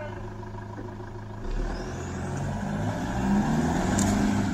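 4x4 pickup truck engine idling, then about a second and a half in it revs up as the truck pulls away up a steep dirt track, its engine pitch climbing steadily.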